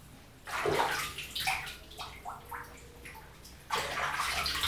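Shallow bathwater splashing and sloshing as a hand scoops and rubs water over a Chihuahua standing in the tub, in several short, irregular splashes with a brief lull a little before three and a half seconds in.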